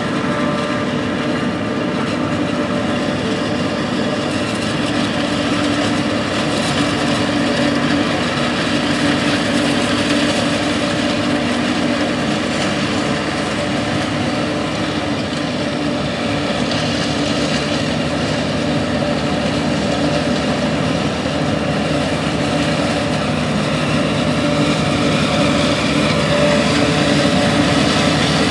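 A John Deere 5830 self-propelled forage harvester chopping corn under load, its 619-cubic-inch six-cylinder diesel and cutterhead running steadily, mixed with the tractor pulling the silage wagon alongside. The sound is continuous and grows a little louder near the end as the machines come closer.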